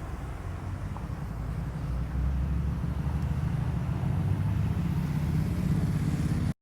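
Low, steady rumble of a running motor vehicle that grows louder about two seconds in and then cuts off suddenly.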